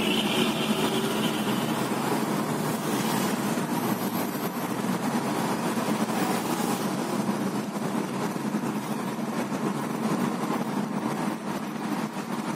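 Car engine and tyre noise heard from inside the cabin while driving, a steady low hum.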